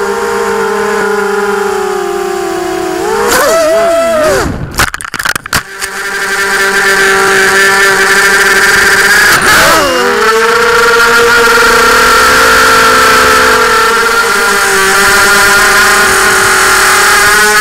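250-size FPV racing quadcopter's electric motors and propellers whining, heard from its onboard camera. The pitch rises and falls with throttle. The sound breaks up and cuts in and out between about four and six seconds in.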